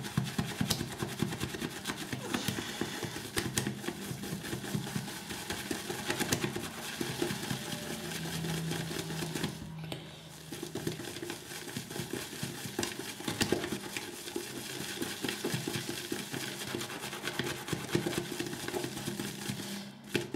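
Large RazoRock Plissoft synthetic shaving brush whipping shaving soap into lather in a plastic bowl: a continuous fast, wet swishing of bristles against the bowl, with a brief pause about ten seconds in.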